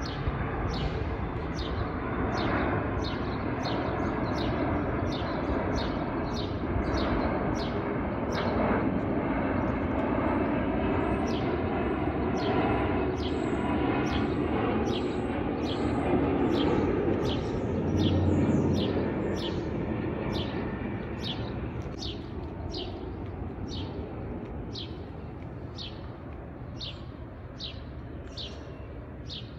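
Jet airliner passing low overhead on final approach to land: a broad engine rumble that swells to its loudest about two-thirds of the way through, then fades. A small bird chirps repeatedly throughout, about three short high chirps every two seconds.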